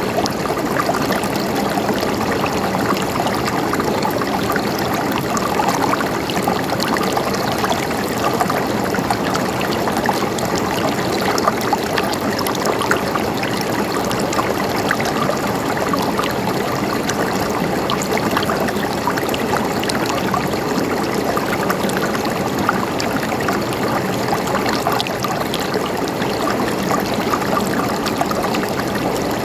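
Mountain stream flowing over rocks, a steady babble with many small splashes and gurgles.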